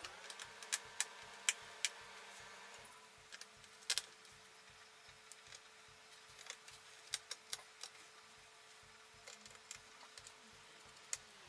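Faint, scattered light clicks and ticks of a small screwdriver and tiny screws against a laptop's screen frame as the screen's mounting screws are put back in.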